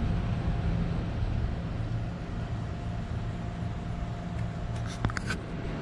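Steady low mechanical hum of running machinery, with a few light clicks about five seconds in.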